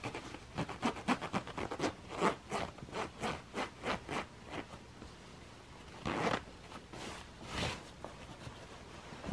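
Metal jeans zipper being run up and down in a quick series of short rasps, its teeth freshly rubbed with candle wax, then two longer rasps later on.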